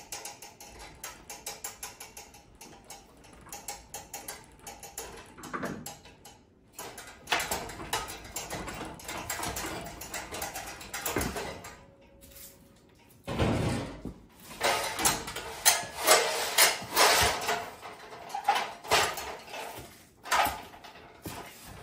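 Light, quick clicking of hand work on a nut on a threaded all-thread rod, then an aluminium extension ladder being climbed down and carried, with irregular metal clanks and knocks that are loudest in the last third.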